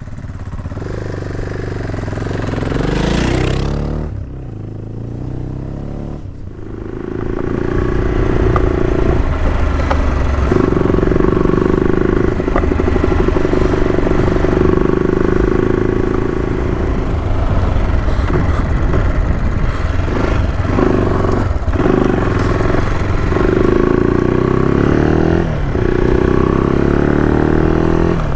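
AJP PR7 adventure motorcycle's single-cylinder engine working on a dirt road. It rises in pitch and dips in the first few seconds as the bike picks up speed through the gears, then runs loud and steady, with a few brief breaks and pitch changes as the throttle is eased and gears are changed.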